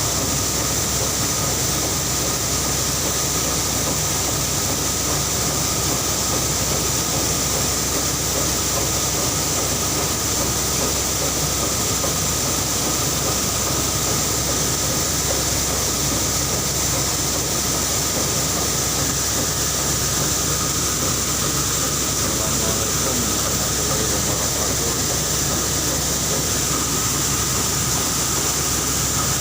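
Rice milling machinery running steadily, a continuous mechanical noise with a steady high whine over it.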